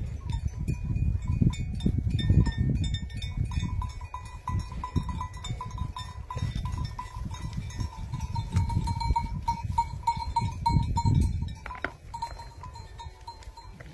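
A flock of Nepalese village sheep milling about, over a low rumbling noise that rises and falls.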